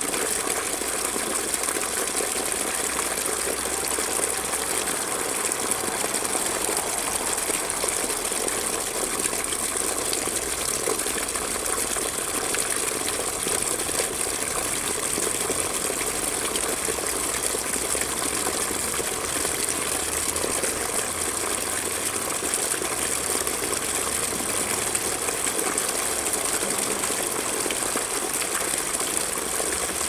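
A thin stream of water pouring from an opening in a rock wall down a mossy channel and splashing into a pool, a steady, unbroken trickle.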